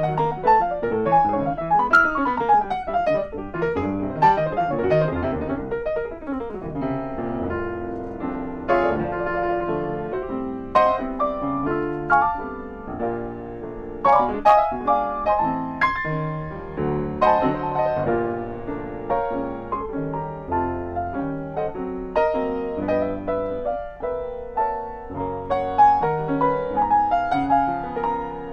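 Solo Yamaha grand piano played continuously: quick falling runs of notes a few seconds in, then chords and melody.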